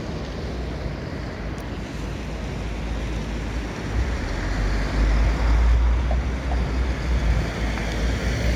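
Wind buffeting the microphone, heavier and gustier from about four seconds in, over a steady rushing noise.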